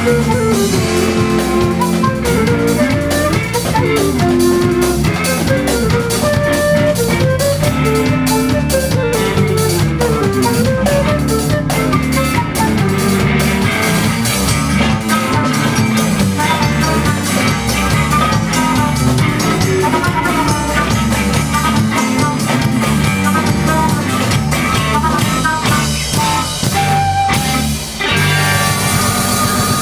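Live band playing an instrumental passage with no singing: a flute melody with electric guitar, over bass, drum kit and hand drums.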